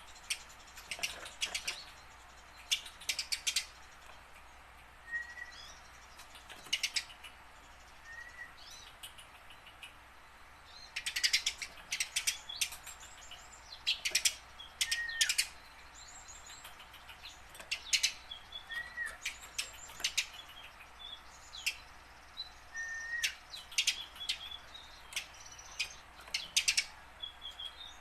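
Eurasian tree sparrow chirping: quick runs of sharp chirps in clusters, with short single notes that rise and drop between them.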